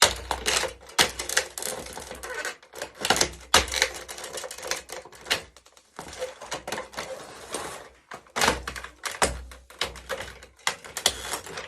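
Plastic toy remote-controlled car being crushed under high heels: a dense, irregular run of sharp cracks, snaps and clicks, with a few heavier thumps as the heel comes down.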